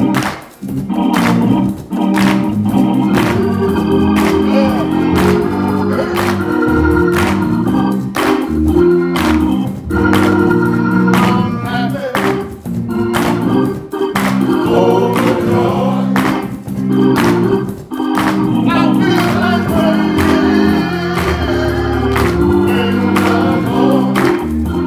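Gospel music: a men's choir singing over sustained organ chords, with sharp hits keeping a steady beat.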